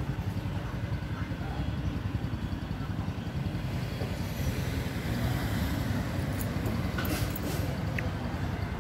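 City street ambience: a steady low rumble of traffic, with a car driving past and away a little past the middle.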